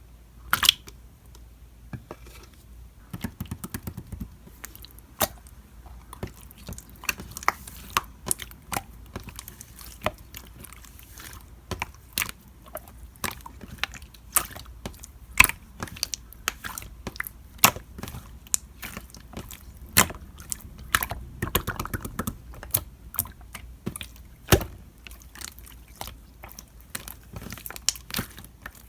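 Clear slime being squeezed and pressed by hand, giving an irregular run of sharp clicks and pops as trapped air bubbles burst, some much louder than the rest.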